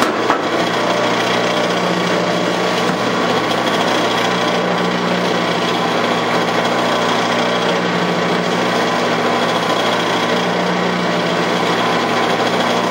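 Metal lathe running with its four-jaw chuck spinning: a steady motor hum with a faint steady whine, while a long cutting tool on a bar is fed into the spinning breech plug. A single short click about a third of a second in.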